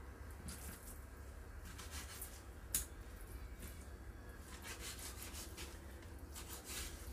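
A kitchen knife slicing raw fish fillet into cubes, its blade faintly scraping on a plastic cutting board, with one sharper tap of the knife on the board a little under three seconds in.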